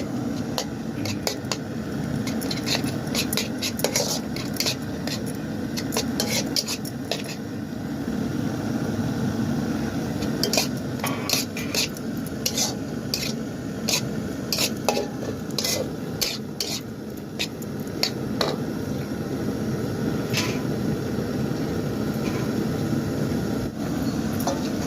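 A metal spoon scraping and clinking against a cooking pan as food is stirred, in sharp irregular knocks, over a steady sizzle of frying.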